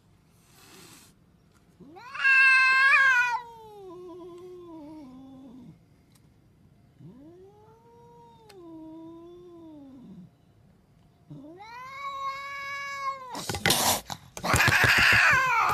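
Domestic cat caterwauling: three long, drawn-out yowls, the first and last loud, the middle one lower and softer. Near the end a loud, harsh burst of screeching and clatter breaks out.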